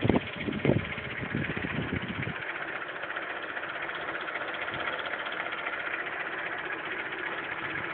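Honda Civic 1.3 four-cylinder petrol engine idling steadily. There are a few knocks in the first two seconds.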